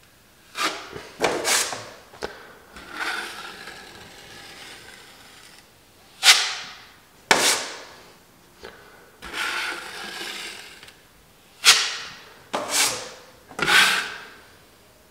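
Steel drywall knife scraping across the wall in a series of quick passes, smoothing and feathering joint compound over a patch. About ten strokes, most short and sharp, two of them longer drawn ones.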